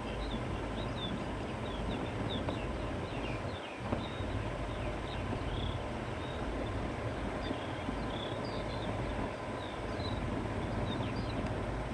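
Wind blowing through grass and open fields, a steady rushing with a low rumble underneath. Small birds chirp throughout, with quick high notes.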